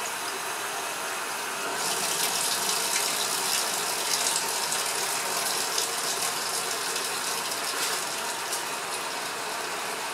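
Water aspirator on a sink tap running: a steady rush of water with a hissing, sputtering edge that grows louder about two seconds in. It is pulling vacuum on the line.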